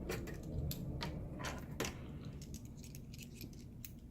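Small sharp clicks and taps of a part being handled and fitted back into place on a 2016 MacBook Pro, coming quickly in the first two seconds and then more sparsely.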